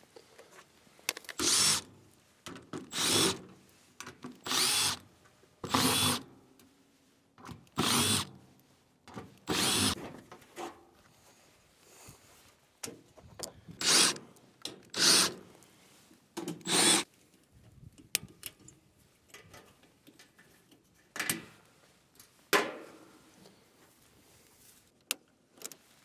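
Cordless drill spinning in about a dozen short bursts, backing the sheet-metal screws out of an outdoor AC condenser unit's top and panels.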